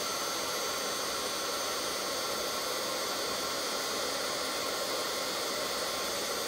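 Embossing heat tool blowing hot air steadily, a constant rush of air from its fan, as it melts embossing powder on a cardstock sentiment.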